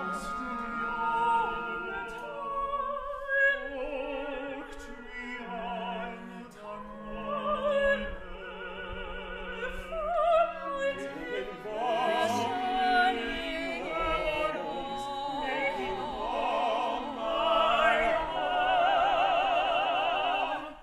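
Operatic singing in English with strong vibrato, several voices trading and overlapping lines over an instrumental accompaniment.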